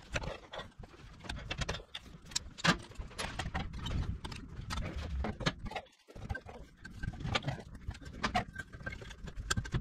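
Scattered metallic clicks and clinks of pliers and the steel rear brake pedal parts being handled as the cotter pin is pulled and the brake pedal assembly is taken off the Honda CRF110. The sound drops out briefly about six seconds in.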